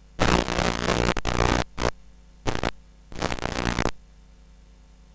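Several bursts of harsh static from videotape playback breaking up, in the first four seconds, then only a low steady hum.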